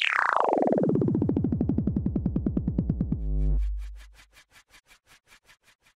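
Electronic intro sting: a rapidly pulsing synthesizer tone, about ten pulses a second, slides down in pitch, then a deep bass boom hits about three seconds in. Faint ticks follow and fade out.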